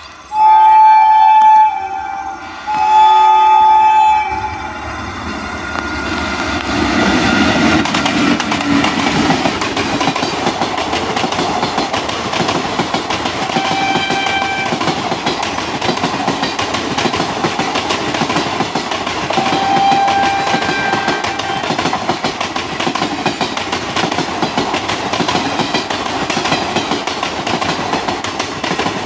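Indian Railways WAP-4 electric locomotive sounding two long horn blasts as it approaches, then passing at full speed with its train of coaches: a steady rush of wheel and rail noise with a rapid clickety-clack over the rail joints.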